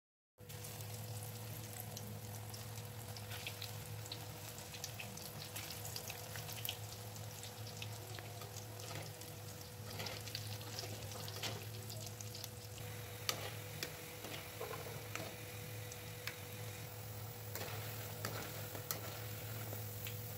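Pakoras deep-frying in hot oil in a wok: a steady sizzle dotted with sharp crackles and pops, over a low steady hum.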